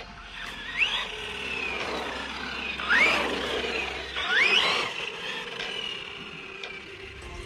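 Maverick Quantum XT Flux brushless RC truck accelerating on asphalt. Its motor whines up in pitch three times, about a second in, at three seconds and at four and a half, over a rushing tyre noise. The last two bursts are the loudest.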